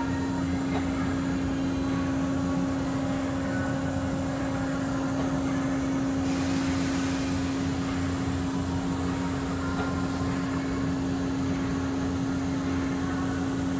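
Amada Vipros Z turret punch press standing idle with its motor running: a steady hum with one constant low tone over a rumbling machine noise, and no punching strokes.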